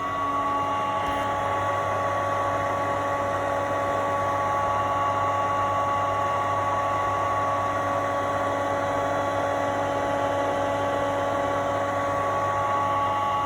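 Filtration pump running steadily: a constant motor hum with a high whine over a rushing noise.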